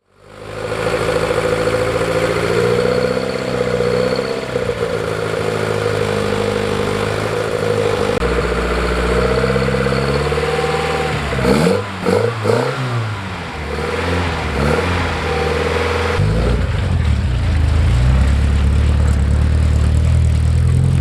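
Rally car engine running steadily, revved up and down a few times about halfway through, then a heavier, louder low engine note near the end.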